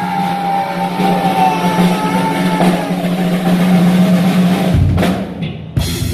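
Live heavy metal band playing: held distorted guitar notes over drums and bass, with a brief break near the end before the full band comes back in.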